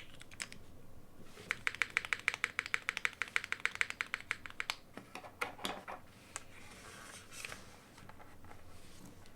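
Typing on a Mode Envoy mechanical keyboard with Cherry MX Brown switches, GMK Stealth keycaps and a carbon fibre plate. A few keystrokes, a short pause, then a fast run of clacks from about a second and a half in, after which the keystrokes turn sparse and softer and tail off near the end.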